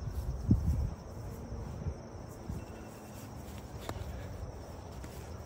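Dull thuds and scuffs from two people sparring on grass, with footwork and punches; the strongest thud comes about half a second in and a sharper knock near the end. Insects chirr steadily in the background.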